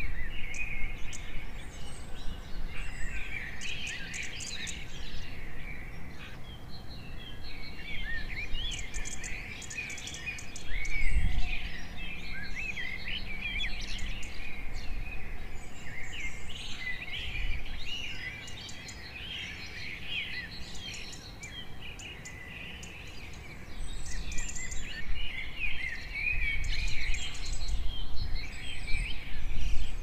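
A busy chorus of birds chirping and singing, short high calls overlapping continuously, over a low background rumble.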